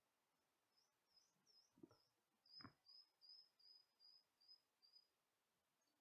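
Eurasian nuthatch calling: a faint series of about a dozen short, high chirps that settles into an even run of down-slurred notes, about three a second. Two soft knocks come midway.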